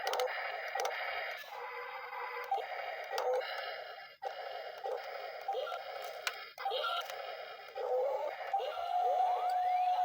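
Small electric gear motors of RC toy construction vehicles whining, starting and stopping with short swoops in pitch; near the end one motor climbs in pitch, then holds a steady whine.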